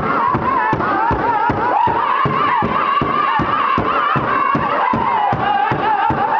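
Powwow drum group singing high-pitched in unison over a fast, steady beat of several sticks on a large hide-covered powwow drum; the sung melody drifts gradually lower.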